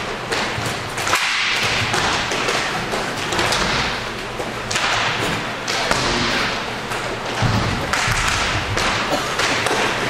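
Inline hockey play: a steady rush of skate wheels on the rink floor with frequent irregular clacks, taps and thuds from sticks and puck.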